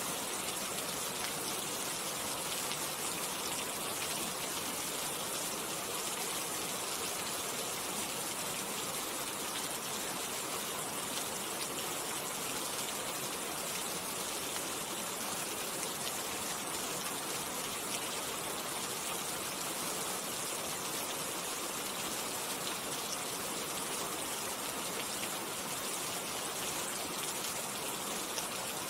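Rain falling steadily: an even hiss of many fine drops.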